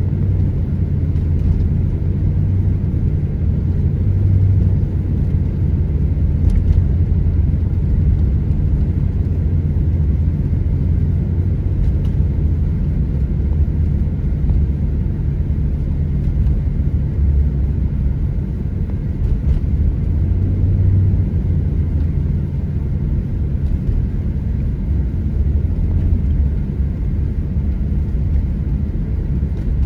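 Steady low rumble of a car driving on a snow-covered road, heard from inside the cabin: tyre and engine noise.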